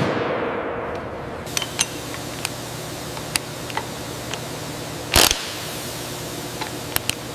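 A heavy metal clank that rings and dies away over about a second, then scattered sharp metallic clicks from a ratchet wrench working a flange nut, with one short loud burst about five seconds in. A steady low machinery hum runs underneath.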